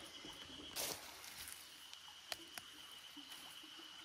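Honey mushroom stems snapping with a few small, sharp clicks as they are torn off by hand, after a brief rustle of handling.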